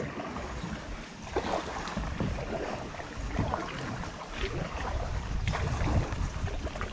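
Paddles dipping and splashing in river water as a small paddle boat moves off, with a few soft irregular splashes. Wind rumbles on the microphone, getting stronger about two seconds in.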